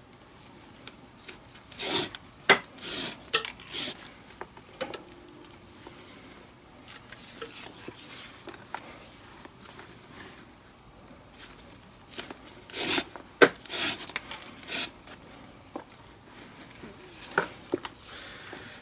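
Leather lace being drawn through the lacing holes at the top of a baseball glove's web while the glove is relaced, in quick short pulls: a cluster about two to four seconds in, another around thirteen to fifteen seconds, and a shorter one near the end.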